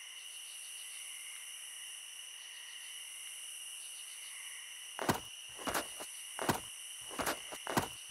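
Steady high chirring of night insects, like crickets, with a person's footsteps on grass coming in about five seconds in, roughly one step every two-thirds of a second. The footsteps are the loudest sound.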